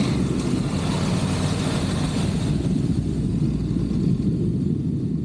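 Honda NC750X motorcycle's parallel-twin engine running, with a hiss over it that thins about halfway through.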